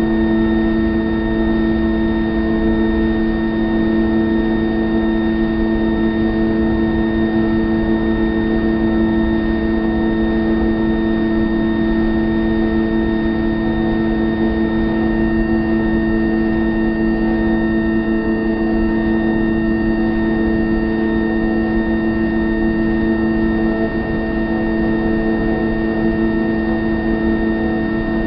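A loud, steady drone of several held tones that does not change.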